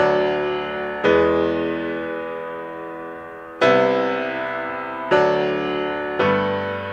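Slow background piano music: five chords in a row, each struck and left to ring and fade before the next.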